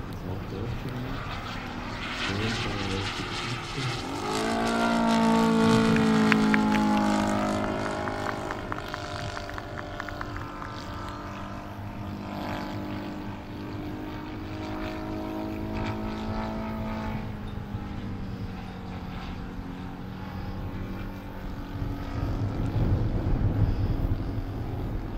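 Engine and propeller of a large radio-controlled scale model Hawker Sea Fury in flight. The drone swells as the plane passes about five seconds in and falls in pitch as it moves away, then carries on more faintly.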